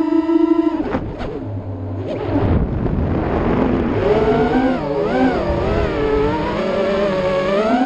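Racing quadcopter's four Racerstar 2205 2600kv brushless motors spinning three-blade props, whining as the throttle changes. The pitch drops about a second in, wavers with rushing air through the middle, and climbs again near the end.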